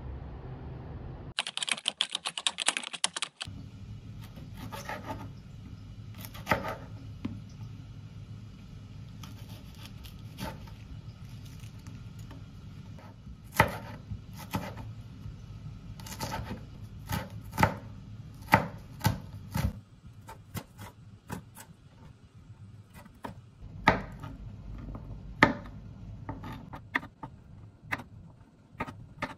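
Kitchen preparation sounds: irregular sharp clicks and knocks of utensils and cookware over a low steady hum, with a loud dense rattle lasting about two seconds near the start.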